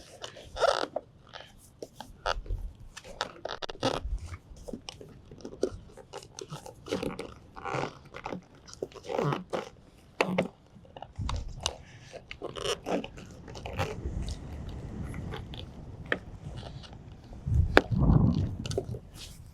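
Irregular clicks, knocks and rustling from hands working the RV slide-topper awning's roller and hardware while its safety pins are released so the roller can tighten. A louder low rumble comes near the end.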